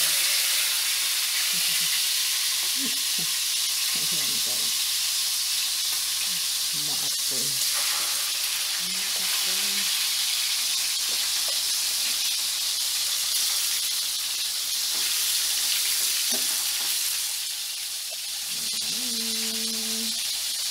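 Fish pieces frying in hot coconut oil, a loud, steady sizzle. The cook takes this noisy sizzling as the sign that the fish is not yet cooked or browned.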